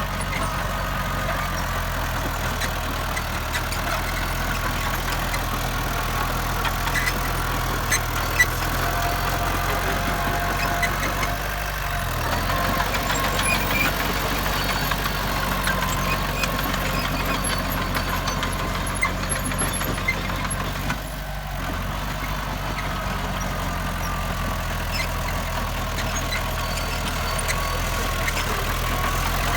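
Heavy diesel earthmoving machinery running steadily, with a whine that wavers in pitch and a few brief knocks.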